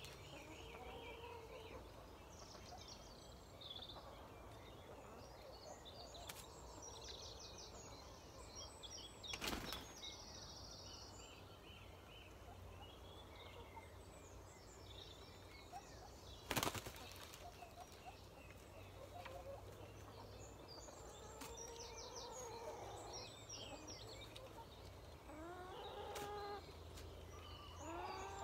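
Faint evening ambience of wild songbirds twittering, with soft calls from hens settling to roost, more of them near the end. Two short bursts of wing-flapping about ten and seventeen seconds in, the second the loudest, as a hen flies up from the fence into the tree branches.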